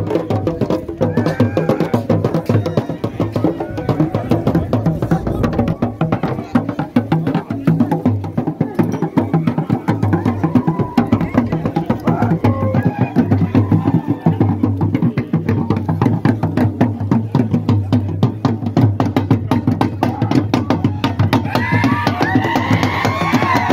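Dance drumming with fast, dense strokes that never let up. Voices singing over it near the end.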